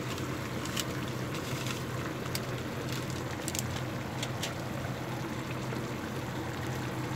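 Soy-and-vinegar braising liquid simmering around pork steak in an aluminium wok, with a few small pops and crackles of bubbling over a steady low hum.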